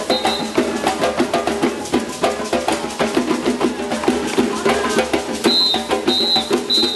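Percussion-led Pernambuco folk music: drums with a clacking wood-block beat and pitched parts over it. Short high tones repeat several times about a second before the end.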